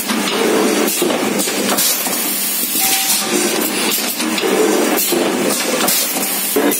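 J P Machinery L-series machine running loud: repeated sharp metallic clanks and knocks mixed with hissing, as its mould tooling and cylinders work.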